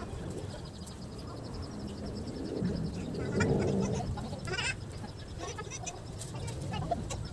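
Faint animal calls: a high, rapidly pulsing trill for the first few seconds and a louder call about three and a half seconds in.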